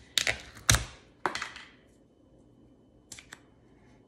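Plastic ricotta tub being opened by hand: several sharp crackles and snaps as the lid is pried and pulled off in the first second and a half, then a couple of faint clicks about three seconds in.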